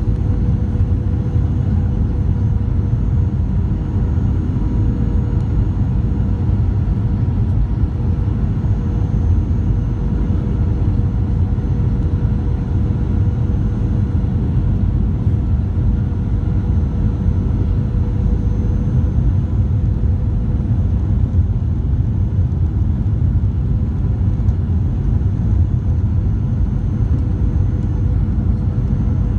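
Steady, even noise inside a jet airliner's cabin on approach to landing, heard at a window seat over the wing, with a faint steady hum running through it.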